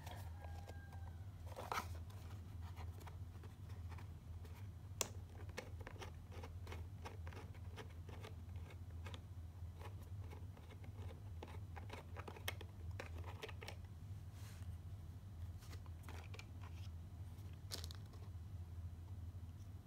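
Hands unpacking a camera: scattered clicks, taps and rustles of cardboard packaging and a plastic accessory bag, over a steady low hum.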